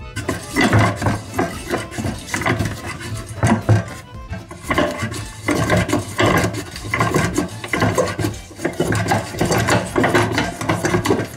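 Hand-cranked cast-iron HARRAS No. 38 bean slicer turning, its rotating blade disc slicing runner beans in a run of scraping strokes. Jazz music plays in the background.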